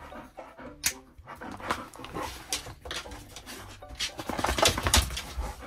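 Labrador retriever panting while its nylon harness is unbuckled and pulled off, with scattered clicks and rustling from the buckles and straps, busiest near the end.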